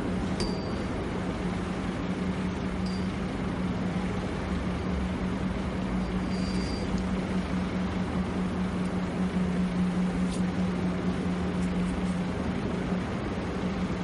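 Steady low hum over a rumbling hiss, typical of an underground station's ambience, with a few faint, brief high pings. The hum cuts out about a second before the end.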